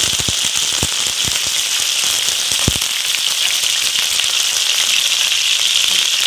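Freshly washed curry leaves sizzling and crackling in hot oil as they are tempered: a loud steady hiss, with a run of sharp pops in the first three seconds.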